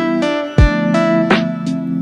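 Background music: held chords with a plucked-string sound over a steady drum beat.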